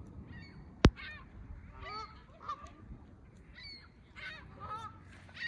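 Canada geese honking repeatedly in short, separate calls. A single sharp click sounds just under a second in and is louder than the calls.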